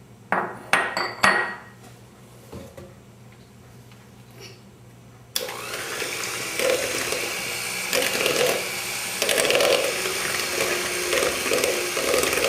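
A few sharp clicks and knocks in the first second or so, then about five seconds in an electric blender switches on suddenly and runs steadily, churning a mixture of creamed butter, sugar and eggs.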